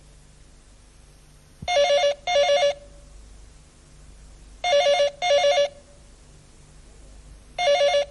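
Landline telephone ringing in a double-ring pattern: two short warbling trills, repeated about every three seconds, heard three times, the third beginning near the end.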